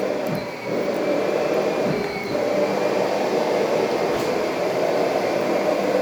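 Household vacuum cleaner running steadily: an even, loud drone, with a thin high whine in the first couple of seconds.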